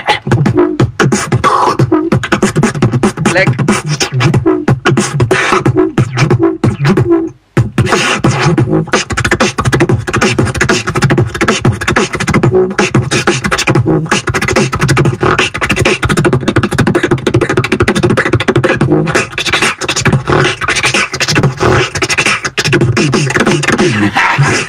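Solo human beatbox performance: fast, dense mouth-made drum patterns with sung or hummed tones layered over the beat. The beat breaks off for an instant about seven seconds in.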